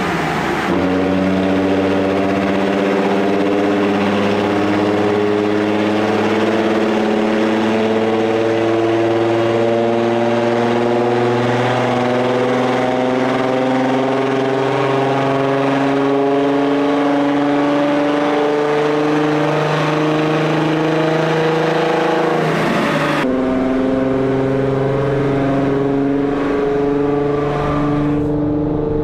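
Turbocharged 3.0-litre VR6 engine of a Golf 4 R32 running steadily under light load on a chassis dyno, with a loud exhaust note through its 3-inch exhaust with the flap open. The pitch dips briefly about half a second in, then rises slowly. Near the end the sound is heard from inside the car's cabin.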